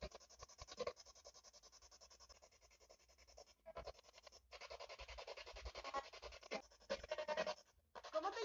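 Spirit box radio scanner sweeping through stations over a small external speaker: a fast, evenly chopped static hiss with brief radio fragments. It drops out briefly a few times and gets louder about halfway through.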